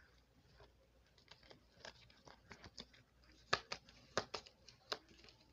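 A deck of oracle cards being shuffled and handled by hand: faint, scattered flicks and snaps of card stock, growing busier and louder a little past halfway.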